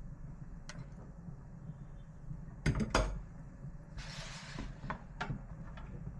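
Kitchen handling sounds: a few sharp knocks and clinks, the loudest pair about three seconds in, over a low steady hum, with a brief hiss about four seconds in.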